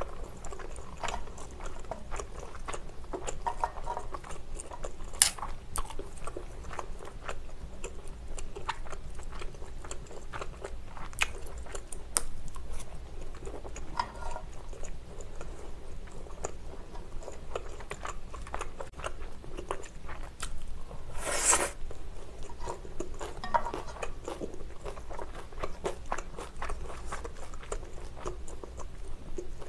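Close-miked mouth sounds of a person chewing japchae, Korean stir-fried glass noodles with vegetables and beef: a steady stream of small wet clicks and smacks, with one short louder burst about two-thirds of the way through.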